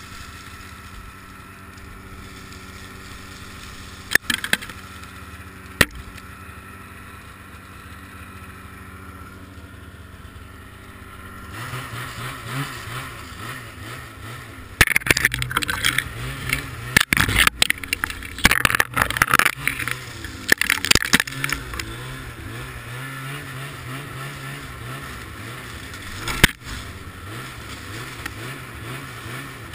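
Ski-Doo MXZ 700 snowmobile's two-stroke engine running low and steady, then picking up revs about a third of the way in. Ice-coated branches crack and scrape against the sled in loud bursts through the middle, with a single sharp knock near the end.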